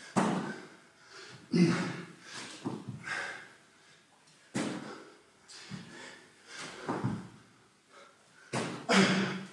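A man doing burpees barefoot on a rubber gym floor: his hands and feet thud on the mat about every second or two, mixed with hard, tired breathing.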